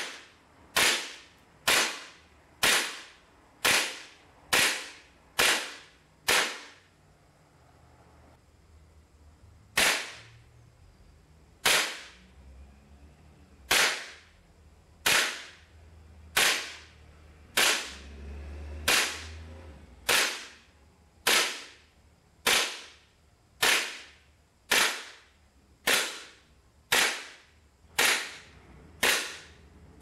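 WE M&P "Big Bird" E-Force gas blowback airsoft pistol firing single shots on NUPROL 4.0 gas, each a sharp crack of the gas and the cycling slide, about one a second. There is a pause of a few seconds about six seconds in, then steady firing resumes.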